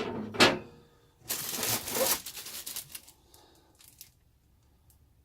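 Two sharp knocks at the start, then about two seconds of crinkling and rustling as paper or plastic packaging is handled, then a few faint clicks.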